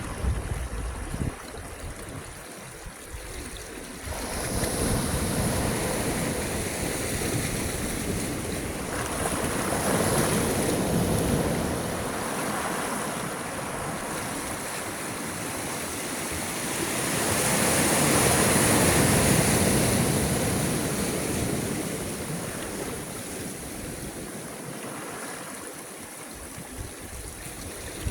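Sea waves breaking and washing in, a rushing noise that swells and ebbs; one surge comes about ten seconds in and a louder one around eighteen seconds in before it dies back.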